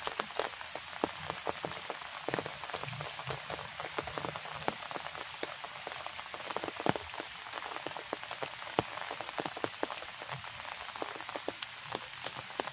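Steady rain falling, with many individual drops landing close by as sharp ticks.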